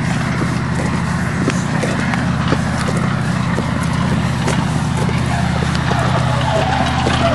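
Slow-moving railway engineering train running with a steady low rumble, with sharp knocks about twice a second.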